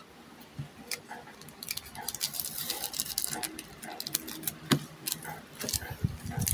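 Foil booster pack of trading cards crinkling and crackling as it is handled and torn open, with one sharp crackle a little before five seconds in.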